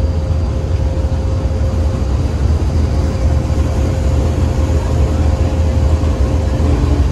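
Pakistan Railways GEU-40 diesel-electric locomotive's engine running close by, a steady deep rumble, as the locomotive creeps up to couple onto the train. A thin steady whine sits over it and stops near the end.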